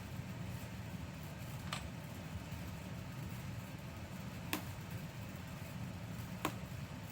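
Three small sharp clicks, spaced a couple of seconds apart, from hands working inside an opened ThinkPad X250 laptop as its internal battery connector is unplugged. A steady low hum runs underneath.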